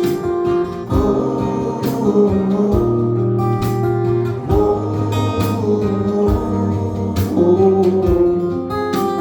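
Band playing an instrumental passage between sung lines, with acoustic guitar strumming over a bass line and a steady beat.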